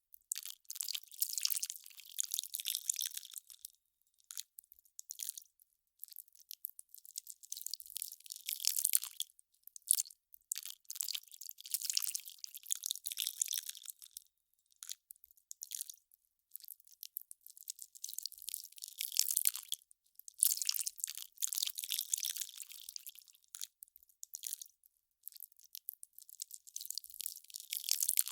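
Melting ice crackling and popping: dense, irregular clusters of sharp, high crackles that come in bursts of a second or more with short gaps between, and no low sound.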